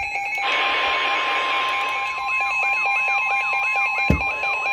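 Emergency alert tones layered together: a steady single alarm tone, a fast pulsing two-pitch beep, and from about two seconds in a siren sweeping up and down about twice a second, with a thump near the end.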